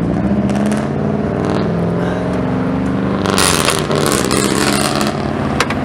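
Engineless right-hand-drive Subaru Legacy wagon rolling as it is pushed by hand, its loose driveshaft dragging and scraping on the road beneath it, with a steady low hum. A louder scraping rush comes a little past halfway.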